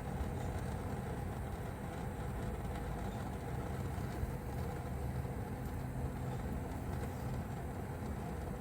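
Small handheld torch flame burning with a steady low rush, heating a seized brake-line union so it will shrink a little on cooling and break free.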